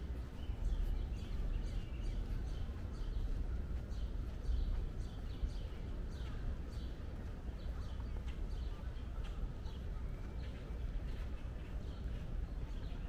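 Small birds chirping over and over in short, quick notes, over a steady low rumble of outdoor background noise.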